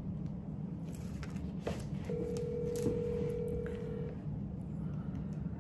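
Telephone ringback tone from a smartphone on speaker: one steady ring of about two seconds, starting about two seconds in, as an outgoing call rings unanswered. A low steady hum runs underneath.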